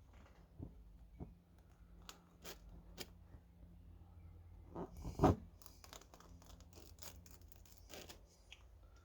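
Scraping, rasping and clicking of hands working with a tyre plug repair kit, with one louder knock about five seconds in.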